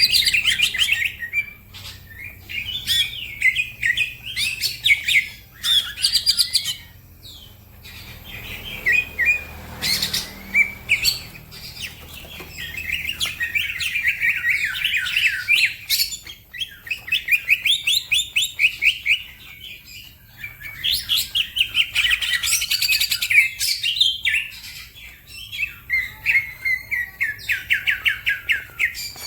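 Green leafbird (cucak ijo) singing in repeated bursts of fast, high trilled notes, each burst a few seconds long, with short pauses between.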